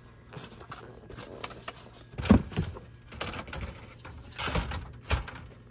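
A cardboard model locomotive box being handled and slid back onto a shelf among other boxes: rubbing and scraping, with a sharp knock a little over two seconds in and a few more thumps near the end.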